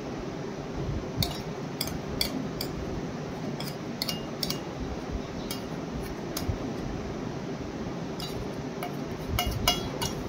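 A small steel saucepan clinking and scraping as a thick homemade skin-bar mixture is worked out of it into a silicone soap mould. Short sharp clinks come every second or so and bunch together near the end, over a steady low hum.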